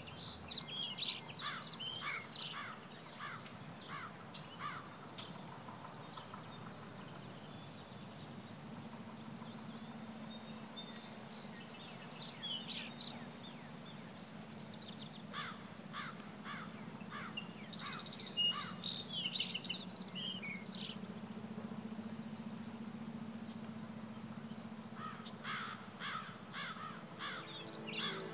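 Outdoor ambience: small birds chirping in short bursts of quick, high notes every few seconds, over a steady low hum and a faint hiss.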